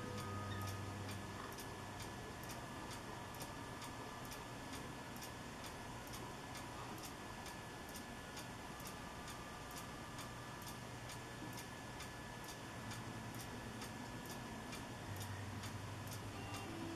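Steady, even ticking, about two and a half high-pitched ticks a second, over a faint low hum with a few faint steady tones.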